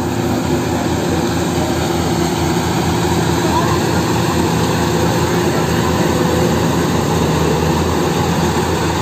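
Yanmar AW70GV rice combine harvester running steadily as it cuts standing rice: its diesel engine and threshing machinery make a dense, even drone.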